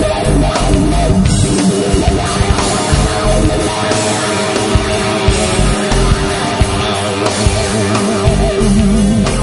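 Loud hard rock music with guitar and a steady beat.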